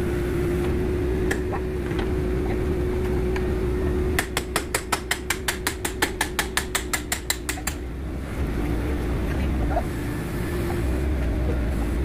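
Ratchet wrench clicking in a quick even run, about seven clicks a second for three and a half seconds, starting about four seconds in, over the steady hum of an idling engine.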